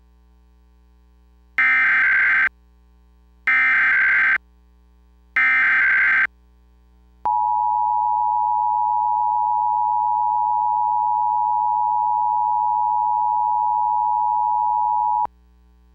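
Emergency Alert System signal for a required monthly test: three one-second bursts of screechy SAME digital header tones, then the steady two-tone EAS attention signal held for about eight seconds.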